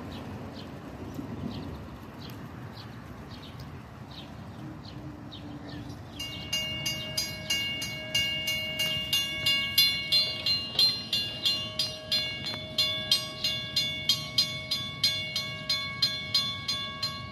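Railroad crossing warning bell, a WCH mechanical bell and the only working bell at this crossing, starts ringing about six seconds in. It strikes rapidly and steadily with a bright metallic ring. It stops near the end as the crossing gates finish lowering, which is when this crossing's side-signal bells are set to go silent.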